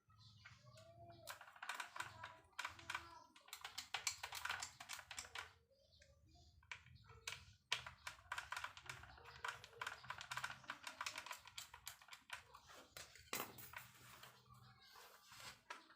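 Rapid, irregular clicking and scratching of small hard parts being handled and worked by hand, with a faint voice in the background.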